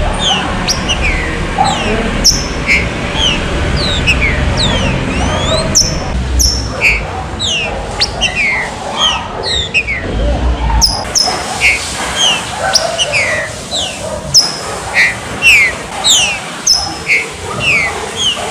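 Green-winged saltators (trinca-ferro) singing: a dense run of short, downslurred whistled notes from more than one bird, overlapping. A low rumble lies under the song and stops about eleven seconds in.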